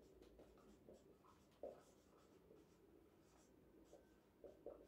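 Faint scratching and squeaking of a marker writing on a whiteboard, in short strokes, with one stronger stroke about a second and a half in and a few more near the end.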